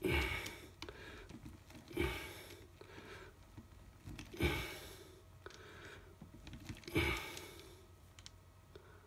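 A person breathing out in short puffs, four of them about two to two and a half seconds apart, each lasting about half a second.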